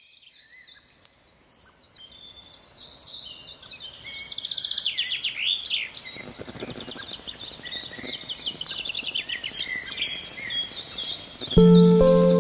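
Small songbirds singing and chirping in a busy chorus of quick, high, varied notes and trills. Music with steady held tones comes in near the end.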